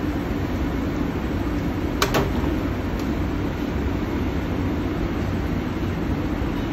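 Steady hum of kitchen ventilation, with two quick clicks close together about two seconds in.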